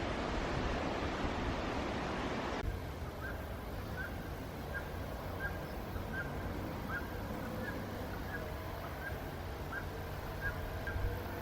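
Wind buffeting the microphone, which cuts off abruptly a few seconds in; then over a quieter hush a small bird repeats a short, high call about twice a second.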